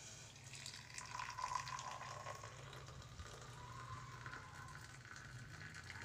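Faint water sound, bubbling and splashing, from the lemongrass-and-ginger decoction, over a low steady hum.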